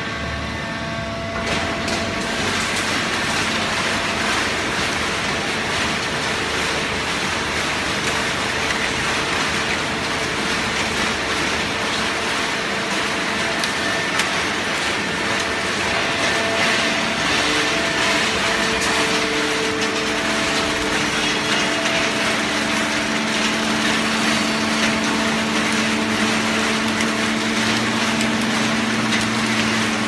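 Horizontal hydraulic baling press running: a steady, loud mechanical noise of its motor and hydraulic power unit, with a few held hum tones that shift partway through.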